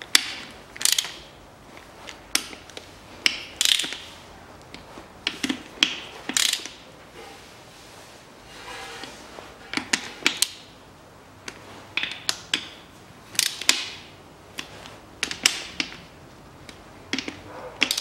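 Hand ratchet and socket clicking in short back-and-forth strokes, tightening the bolts of a manual gearbox's rear cover. The clicks come in quick bursts about once a second, with brief pauses between them.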